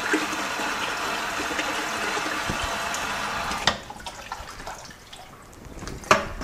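Water from a garden hose pouring and splashing into a bucket of water, rinsing sanitizing solution off soaked pea seeds held in a mesh net. The flow sound drops sharply about three and a half seconds in, leaving quieter trickling, and a couple of knocks come near the end.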